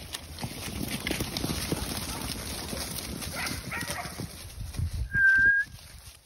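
Sheep and footsteps shuffling and thudding on grass and dry leaves, then one short, high, steady whistle about five seconds in, the loudest sound.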